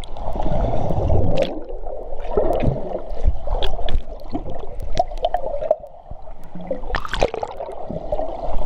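Muffled underwater churning and gurgling of wave-pool water heard through a submerged camera, with scattered sharp clicks and knocks.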